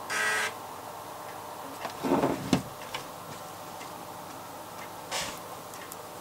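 Amiga 1200's floppy drive reading a demo disk, making short buzzing, clicking bursts as the head seeks: one at the start, one about two seconds in and one about five seconds in, with scattered small ticks between.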